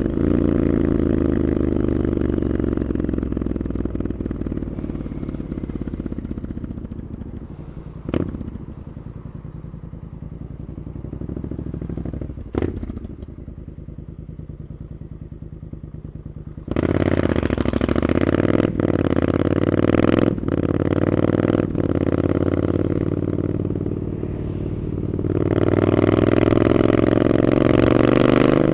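Triumph Scrambler 900 parallel-twin with an aftermarket Arrow exhaust, heard from the rider's seat: running at speed, then easing off to low revs for a while, with two sharp knocks. About two-thirds through it accelerates hard, the exhaust note breaking briefly three times as it shifts up, and it builds again near the end.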